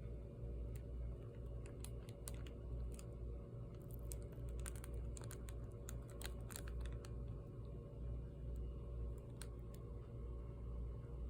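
Irregular sharp clicks and ticks over a steady low hum, the clicks coming thickest in the middle.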